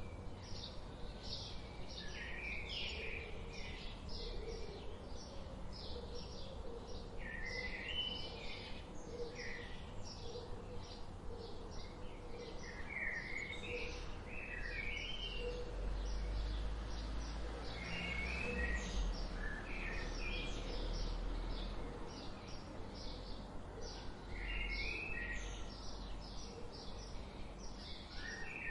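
Songbirds chirping: a fast, steady series of short high chirps, a few per second, with lower warbled phrases breaking in every few seconds. A faint low rumble rises around the middle.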